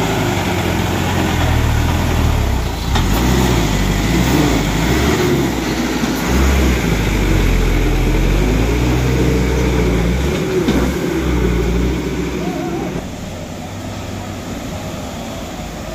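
A vehicle engine running while driving, with a deep steady rumble and a few brief knocks; it gets quieter about three seconds before the end.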